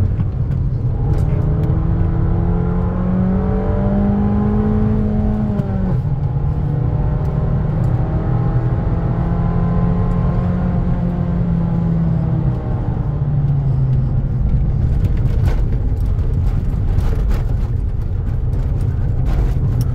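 Abarth 595's turbocharged 1.4-litre four-cylinder engine pulling hard, heard from inside the cabin over steady road and tyre rumble. The revs climb for about five seconds, then drop sharply and hold, and drop again about twelve seconds in. A scatter of sharp clicks comes near the end.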